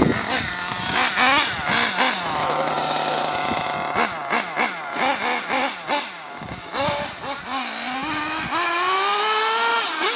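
Kyosho MP9 TKI3 1/8-scale nitro buggy engine revving up and down in quick bursts as the car is driven, then holding a longer rising whine near the end.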